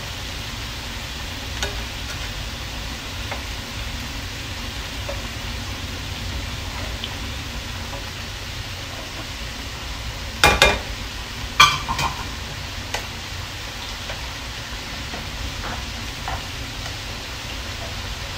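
Shrimp sizzling in a frying pan, with metal tongs clicking against the pan and shrimp, loudest in a few sharp clacks about halfway through.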